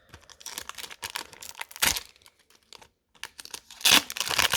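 Foil trading-card booster pack wrapper being torn open and crinkled by hand, in a run of sharp crackles, with a short lull about three seconds in and the loudest crackle about a second later.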